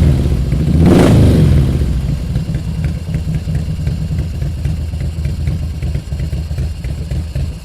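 Harley-Davidson Road King's V-twin engine idling, with a short rev at the start and a stronger throttle blip about a second in, then settling back to a steady, lumpy idle.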